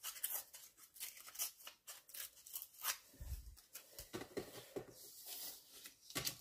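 Vellum paper being torn by hand in a run of short, irregular little tears to give it a ragged edge, with paper rustling as it is handled. A soft bump about three seconds in.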